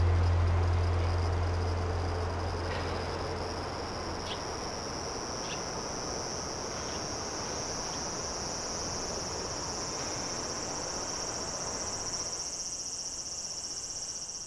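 Steady, high-pitched insect chorus that creeps slightly upward in pitch, with a low music tail fading out over the first few seconds.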